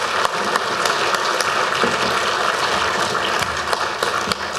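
Audience applauding: many hands clapping together in a steady, dense stream.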